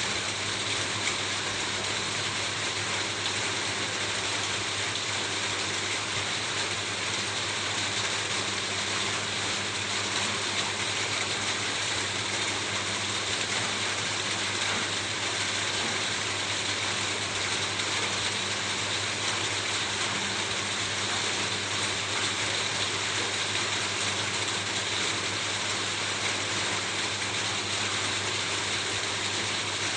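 Rain falling steadily on a roof: an even, dense hiss of drops that holds the same strength throughout.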